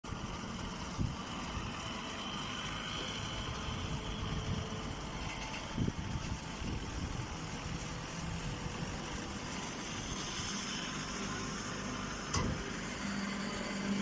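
Vertical grass-and-straw baling machine with its feed conveyor running steadily, with a few single knocks and a low steady hum that joins near the end.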